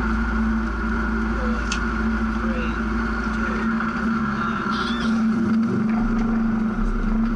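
Rally car engine running at steady revs, a constant drone with no revving.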